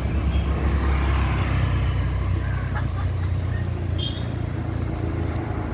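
Road traffic: a motor vehicle's low engine rumble, strongest for the first four seconds, then easing off.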